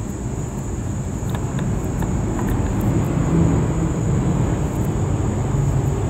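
Steady low rumble of background engine-like noise that grows a little louder past the middle, over a faint steady high whine, with a few light clicks about a second and a half in.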